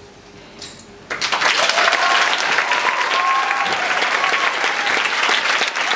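An audience breaks into loud applause about a second in, with shouted cheers over the clapping.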